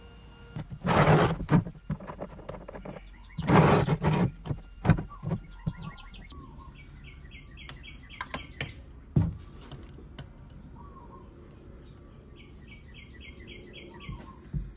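Hand tools being handled under a scooter: two loud bursts of clattering in the first four seconds, then a few sharp clicks and a knock near the end as a ratchet with a 12mm socket is set on the oil drain bolt. A small bird chirps a quick run of high notes twice, about seven seconds in and again near the end.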